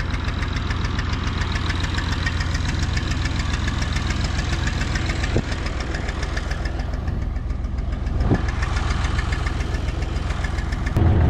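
Ursus C-330 tractor's two-cylinder diesel idling with an even knocking beat, getting louder near the end as the microphone comes close to it.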